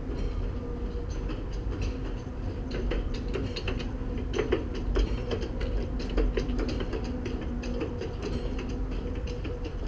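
Car of the Dresden suspension railway, a cable-hauled hanging railway opened in 1901, running along its overhead steel track, heard from aboard: a steady low rumble and hum, with a run of quick clicks and rattles through the middle.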